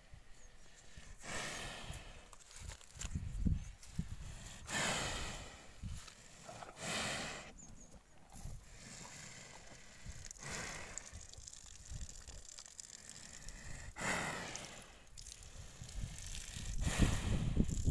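Water buffalo breathing close to the microphone: a hissing breath every two to three seconds, with low rumbling handling noise growing near the end.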